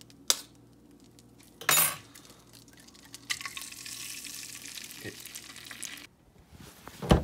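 Eggs sizzling in hot fat in a non-stick frying pan: a steady hiss starting about three seconds in as they hit the pan and cutting off suddenly about six seconds in. Before it come a click and a short, loud knock; near the end, a low thump.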